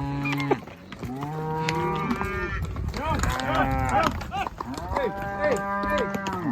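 Several cattle mooing, long drawn-out calls that overlap one another at different pitches.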